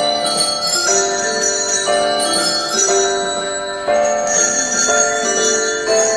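A Christmas melody played on ringing bell tones, with chords of sustained notes changing about every half second to a second.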